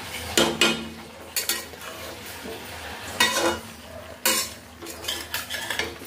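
A metal spatula scraping and clanking against the sides of an aluminium kadai as chopped greens are stirred and turned, in irregular strokes that come in small clusters.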